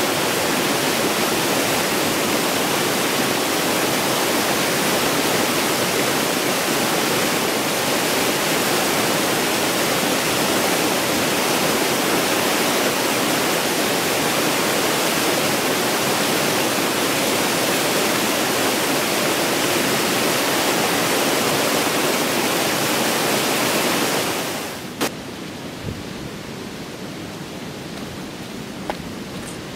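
Whitewater of a waterfall rushing over rocks, a steady loud rush. About 24 seconds in it cuts away to a much quieter hiss with two sharp clicks.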